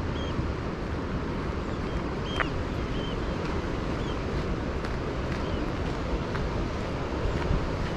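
Wind buffeting the microphone in a steady low rumble, with a few short high bird calls through the first half.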